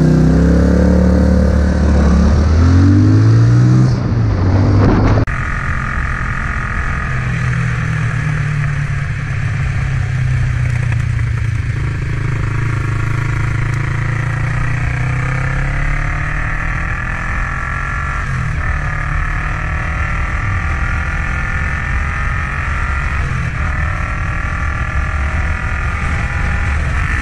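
Cruiser motorcycle engine heard from the rider's seat, pulling away with its pitch rising. After an abrupt cut, another cruiser runs steadily along a road, engine hum under wind noise, its pitch shifting with the throttle several times.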